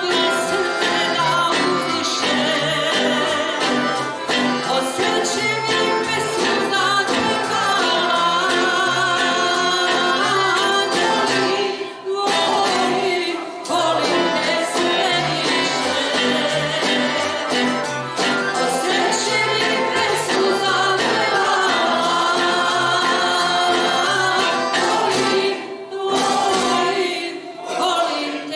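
Live folk song: a woman sings lead into a microphone, backed by a small choir and a band of plucked string instruments with acoustic guitar. The music carries on with only brief breaks between phrases.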